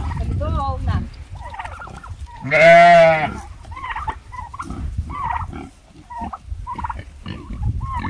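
Farm animals calling: one loud, wavering bleat lasting nearly a second about two and a half seconds in, with shorter, quieter calls scattered around it.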